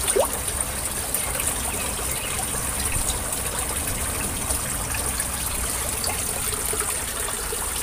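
Water pouring and splashing steadily from PVC inlet pipes into a tarpaulin fish pond. A brief rising squeak comes just after the start.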